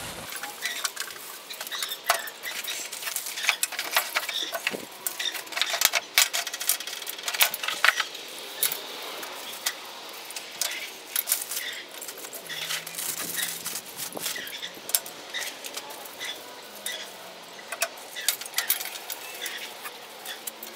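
Plastic packaging crinkling and rustling as small plastic parts are unwrapped, with many light clicks and clacks of the parts being set down on a glass tabletop.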